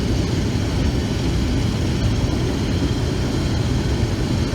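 Tractor engine running steadily, a loud low rumble that ends abruptly.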